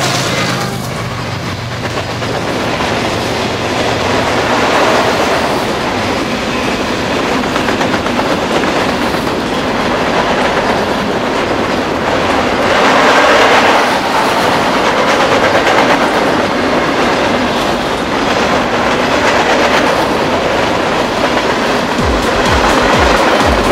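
Diesel-hauled freight train's cars rolling past: a steady rumble with wheels clattering on the rails, swelling louder about halfway through. The trailing diesel locomotive's engine note dies away in the first second.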